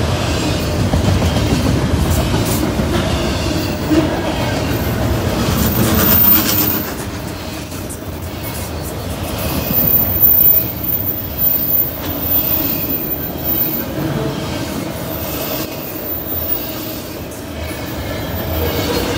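Loaded double-stack well cars of a Norfolk Southern intermodal freight train rolling past at close range: a steady rumble of wheels on rail, with a run of louder knocks and clanks about ten seconds in.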